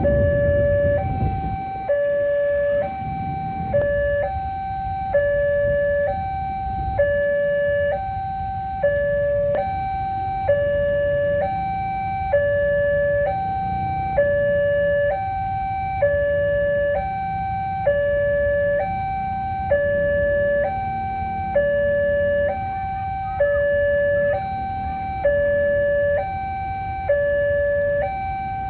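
Railway level-crossing warning siren sounding its two-tone alarm, alternating steadily between a high and a low tone, each held just under a second. A low rumble runs underneath and is loudest at the start.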